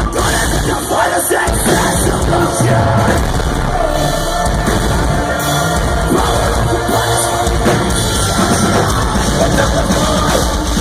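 Live metalcore band playing loud through a crowd recording: distorted guitars, bass and drums with a vocalist singing and yelling over them.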